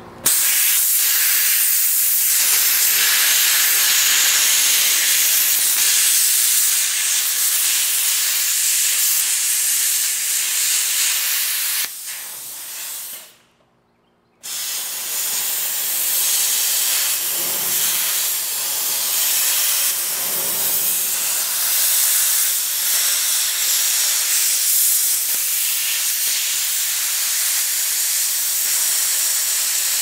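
Plasma cutter cutting steel: a loud, steady hiss of the cutting arc and air. It stops for about a second near the middle, then starts again.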